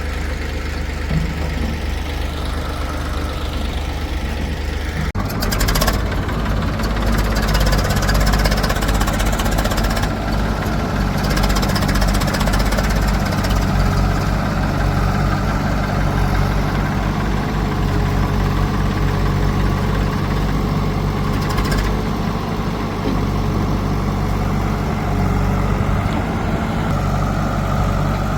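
Diesel engine of heavy farm and earthmoving machinery running steadily at low revs. About five seconds in the sound changes abruptly to a louder, deeper engine note that carries on steadily.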